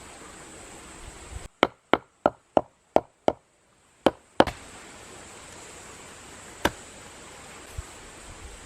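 A run of sharp, hard strikes: six in quick, even succession about a third of a second apart, then two more close together, then a single strike a couple of seconds later.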